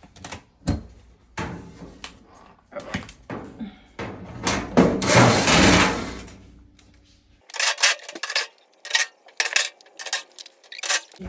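Cordless drill-driver backing screws out of a dryer's sheet-metal back panel, with metal clatter. The drill or panel noise runs loud for about two seconds near the middle, then a quick run of sharp metallic clicks follows.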